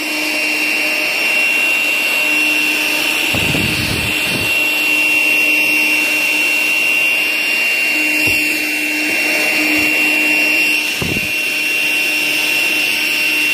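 Cordless handheld vacuum with a narrow crevice nozzle running steadily, with a high whine over a low hum. A few short bumps come as the nozzle knocks against the trunk sill.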